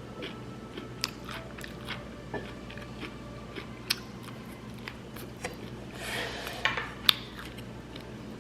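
Someone eating: chewing, with scattered sharp clicks of utensils against a dish and a short crunchy stretch near the end.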